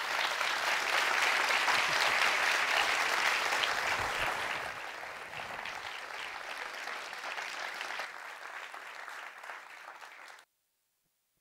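Audience applauding, the clapping thinning and fading over several seconds, then cutting off abruptly near the end.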